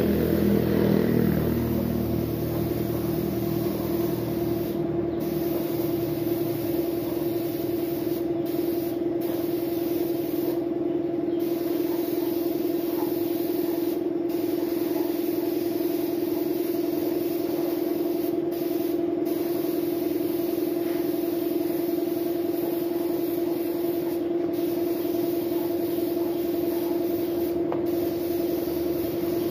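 Compressed-air paint spray gun hissing as it sprays, the hiss cutting out briefly about ten times as the trigger is let off, over the steady hum of the air compressor that feeds it.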